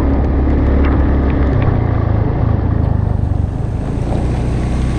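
Boat engine running steadily with a low hum; about a second and a half in, its pitch steps up and holds there.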